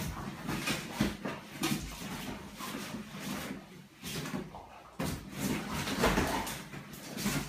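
Dobermanns wrestling in a padded fabric dog bed: irregular scuffling, rustling and knocks of bodies and paws.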